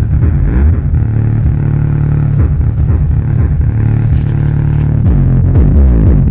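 Bass-heavy electronic music played through a bare 5-inch subwoofer driver wired to a 2.1 home theater amplifier, with deep, loud bass and sliding low notes.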